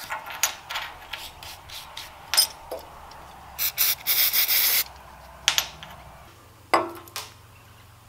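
Brass wire hand brush scrubbing a small aluminium cable clamp in short, quick strokes, then two bursts of hiss from an aerosol spray can about four seconds in. A sharp knock follows later on.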